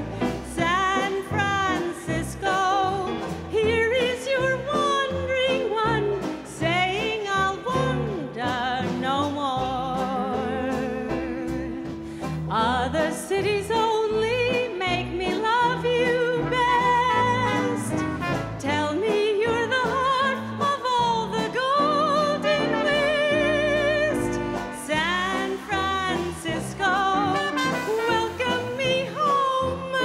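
A female vocalist sings a slow song with a wide vibrato, backed by a small jazz dance band with piano, upright bass, drums and trumpet.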